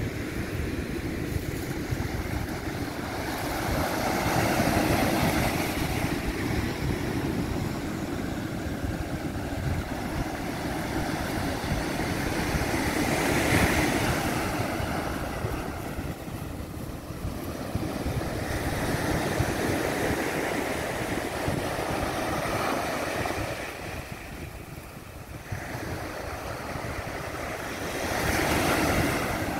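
Ocean surf breaking on a sandy beach, the wash swelling and easing every several seconds, with wind rumbling on the microphone.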